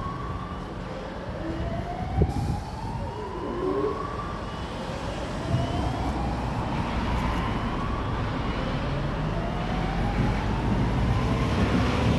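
Fire alarm sounder giving a repeating rising sweep, each whoop climbing for about two and a half seconds before starting again, over a steady low rumble. A single knock comes about two seconds in.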